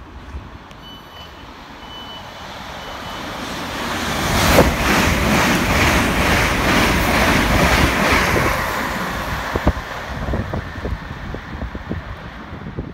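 Electric multiple-unit passenger train running through the station platform: its sound builds, peaks with a rhythmic clatter of wheels over the rails, then fades as it passes. A few short high beeps sound near the start.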